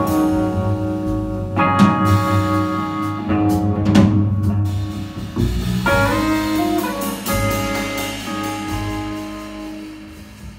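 Live jazz trio playing: electric guitar chords over upright bass and a drum kit with cymbals, growing quieter near the end.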